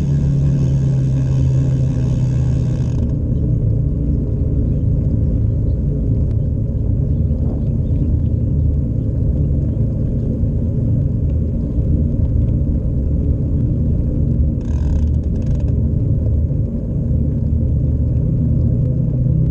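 Steady low rumble of wind buffeting the microphone and tyre noise from a bicycle rolling over asphalt.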